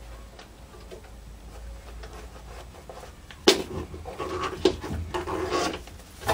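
Stitched paper being shifted and rustled by hand on a sewing machine bed, with irregular rustling and a few sharp clicks, the first and loudest about halfway through.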